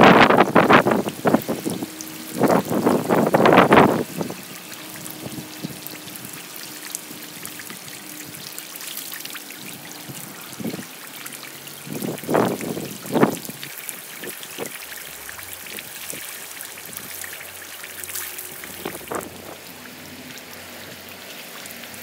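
Rainwater trickling and running over the ground under falling rain, a steady watery hiss. Louder splashing surges come over the first few seconds, again twice close together around the middle, and once more near the end.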